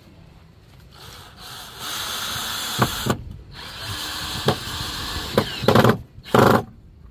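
Power drill driving a screw into wood: it runs for about a second, pauses briefly, runs again for about two seconds with a few sharp clicks, then gives two short, louder bursts near the end as the screw is driven home.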